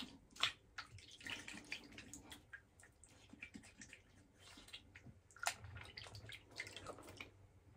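Faint water splashing and dripping at a sink, with scattered small knocks: rinsing off between shaving passes.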